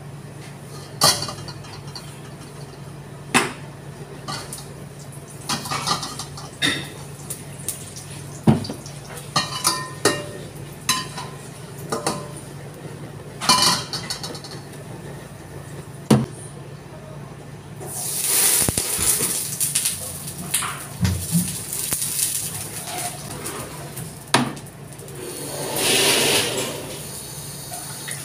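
Metal pans and utensils clinking and knocking on a commercial gas range over a steady low hum. From about two-thirds in, hot oil sizzles loudly in the smoking wok, in two waves.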